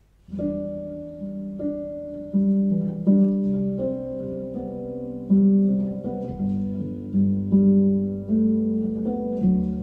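Recorded music played through SVS Ultra Evolution Bookshelf loudspeakers: a slow track of plucked notes, each starting sharply and fading, over a sustained low bass, starting about a third of a second in.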